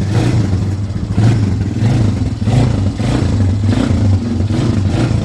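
Polaris Phoenix 200 ATV's small single-cylinder engine running just after an oil change, its revs rising and falling in repeated pulses.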